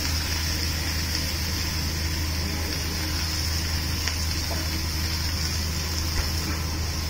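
Commercial gas wok burner running at full flame with a steady rush, under cabbage sizzling in a steel wok. The ladle rests in the pan without stirring, apart from a faint tick or two.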